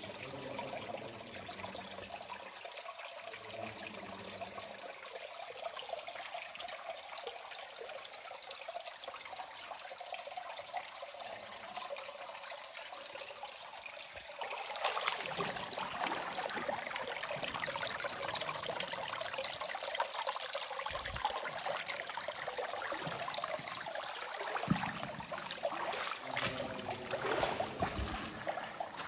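Shallow cave stream water trickling and flowing steadily. About halfway through the water sound grows louder and fuller, with a few short low thumps in the second half.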